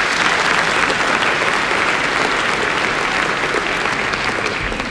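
A large seated audience applauding steadily, the clapping easing off near the end.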